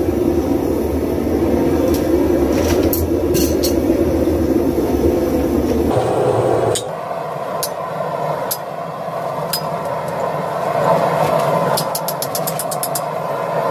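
A steady low roar for the first half that drops away, then a hand hammer striking red-hot spring steel on an anvil while a straight-razor blade is forged: a few spaced blows, then a quick run of about eight strikes near the end.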